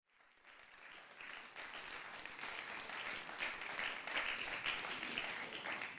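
Audience applause, many people clapping at once, rising over the first second or two and then holding steady.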